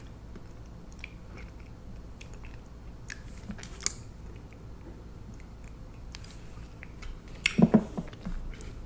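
Close-miked mouth sounds of someone chewing food, with scattered soft wet clicks and a louder burst of chewing about three-quarters of the way through.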